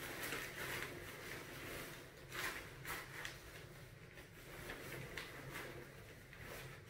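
Collapsed pop-up beach tent's fabric rustling and swishing as it is gathered and wrapped by hand, with a few louder swishes about two and a half to three seconds in.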